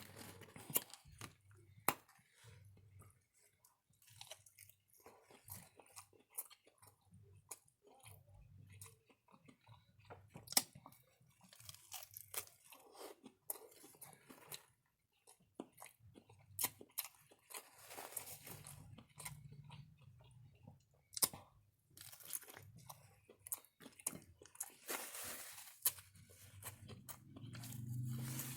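A person chewing food close to the microphone, with scattered crunches and mouth smacking.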